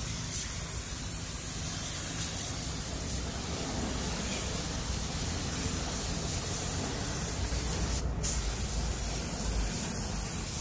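Compressed-air gravity-feed spray gun hissing steadily as it sprays paint onto truck body panels, with a short break about eight seconds in when the trigger is let off.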